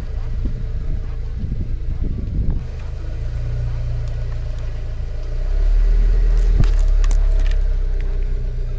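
Car engine running at low speed as the car creeps forward over asphalt, with a steady low hum. A little over halfway through the rumble grows louder and a few sharp cracks and clicks sound as the wheel reaches a plastic toy.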